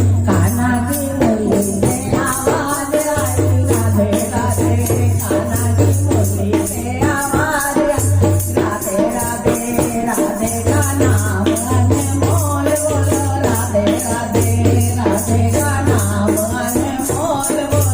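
Devotional bhajan music: a melody line over a low bass that comes and goes in long stretches, with shaker-like rattling percussion keeping the beat.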